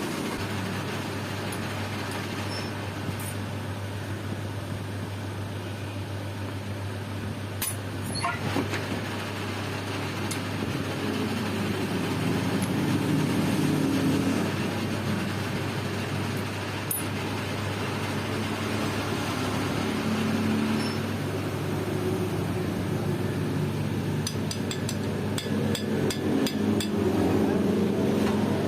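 A steady machine hum with a few scattered clicks and, near the end, a quick run of light metallic ticks.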